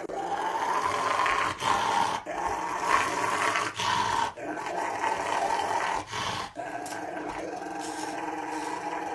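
A Rottweiler growling and snarling as an electric nail grinder is run on its front claws, with the grinder's steady motor whine underneath.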